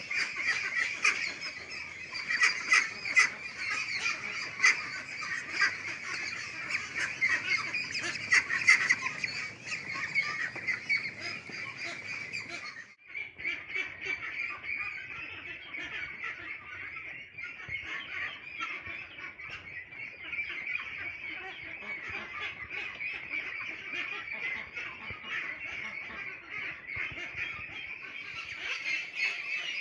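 A flock of 29-day-old hybrid ducklings calling continuously, a dense overlapping chatter of high-pitched peeps. The calling dips briefly about thirteen seconds in and is a little quieter after that.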